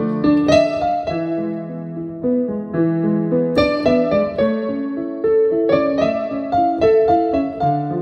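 Digital piano played slowly and gently: held chords under a single-note melody, with new notes struck about every second and left to ring.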